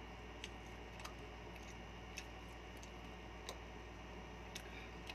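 Faint eating sounds of someone eating rice by hand: small sharp clicks and smacks at irregular intervals, roughly one a second, over a steady low hum.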